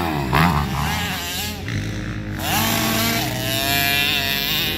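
Motocross dirt bike engines revving, the pitch swinging up and down, then climbing about halfway through to a held high rev.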